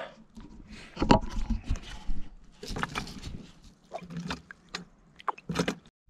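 Portable hand-pump water filter being worked, a string of uneven knocking and scraping strokes from the pump. It is passing water only slowly, which he puts down to the cartridge possibly being clogged.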